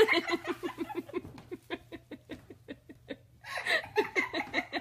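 A person laughing hard: a long run of quick 'ha' pulses, about six a second, that slows and fades, then a fresh burst of laughter about three and a half seconds in.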